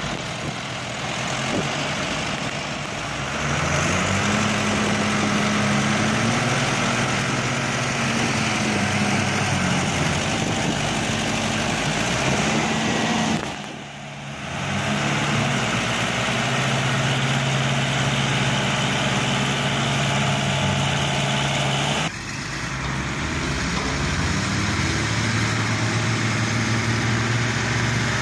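Fendt and Zetor tractor diesel engines running hard under load as they pull a stuck truck out of the mud. The engine note rises a few seconds in and holds steady. It dips briefly about halfway through and changes abruptly near the end of the second third.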